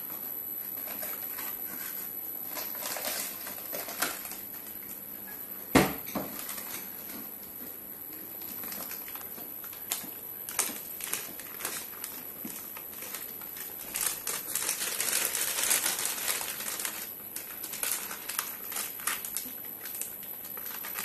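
Packaging being handled: a small cardboard box opened, then a silver anti-static bag crinkling as it is turned over in the hands, in scattered clicks and rustles. There is one sharper knock about six seconds in, and a denser stretch of crinkling a little past the middle.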